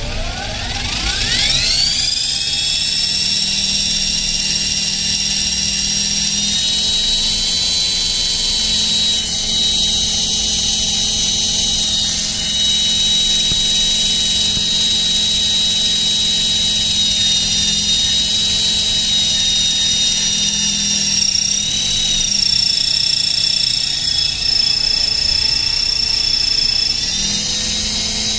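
Align T-Rex 450 Sport electric RC helicopter spooling up, its high whine rising over the first two seconds, then running at a steady head speed, with brief dips in pitch near the end. The whine carries a strange noise from the main gear that the owner has not yet traced.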